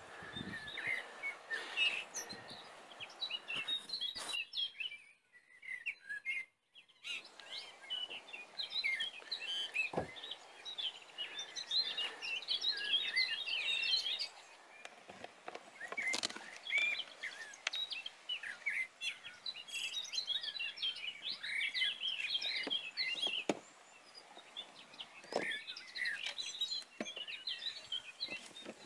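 Small songbirds chirping and twittering, many short high calls spread throughout, with a brief lull early on and a few scattered knocks.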